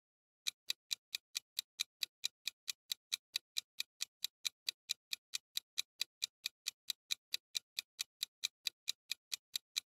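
Clock-tick sound effect of a quiz countdown timer: sharp, even ticks, about four to five a second, starting about half a second in and marking the time left to answer.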